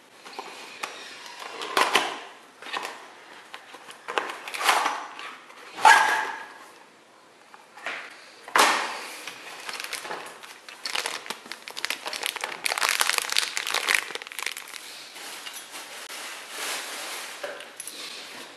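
Cardboard box and clear plastic packaging bag rustling and crinkling as a toy is unboxed by hand, in irregular bursts, loudest about six seconds in.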